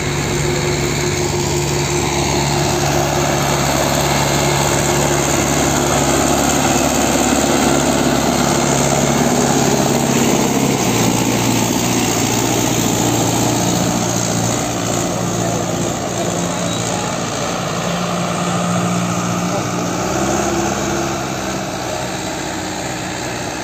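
Solis tractor engine working under load as it pulls a harrow through the field, with the harrow's churning of the soil loudest as it passes close by. The engine note drops about halfway through.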